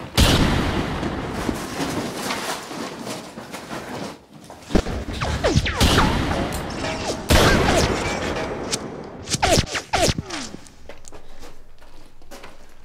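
Gunfight sound effects: loud revolver and pistol shots, one right at the start and then several more spread out, with short falling tones after some of them.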